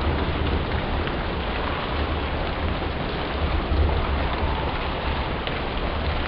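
Steady rain falling, an even hiss with a few separate drops standing out, over a low rumble.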